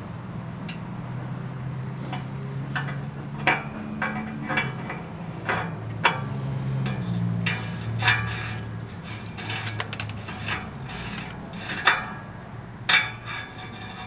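Ratchet, 22 mm socket and oxygen sensor clinking metal on metal as the downstream O2 sensor is unscrewed from the exhaust pipe: irregular sharp clicks and clinks, several a second at times, over a low steady hum.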